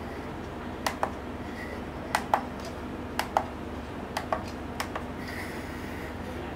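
Plastic push buttons on the back of a Zebronics Zeb-V16HD monitor pressed one after another, each press giving a pair of sharp clicks, press and release; five presses in about four seconds, then a soft rustle of handling near the end.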